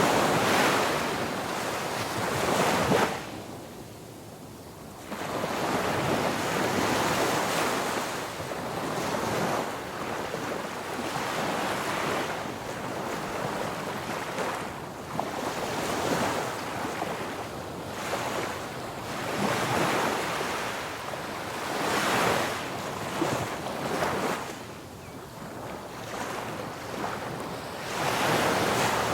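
Ocean waves breaking on a beach, the surf swelling and falling away every few seconds, with a brief lull between breakers early on.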